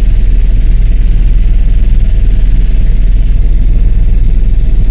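Helicopter in cruising flight heard from inside the cabin: a steady, loud, deep drone from the rotor and engine.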